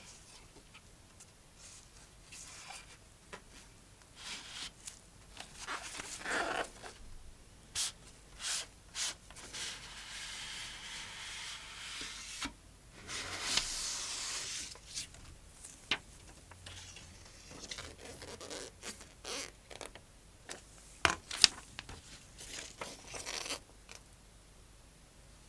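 Cardboard and paper packaging of an Apple Watch band box handled by gloved hands, with scattered crisp taps and rustles. Around the middle comes a longer scraping hiss of cardboard sliding against cardboard, and near the end a paper leaflet is unfolded.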